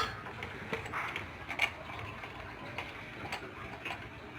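A few scattered light clicks and taps, spaced irregularly, over a faint background.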